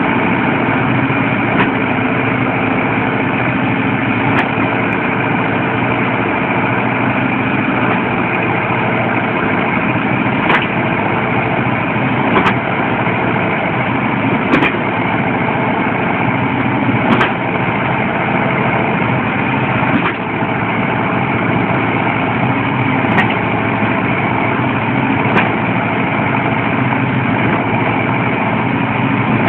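Zetor tractors' diesel engines running steadily as they work through deep mud, with about nine short sharp clicks or clanks scattered through it.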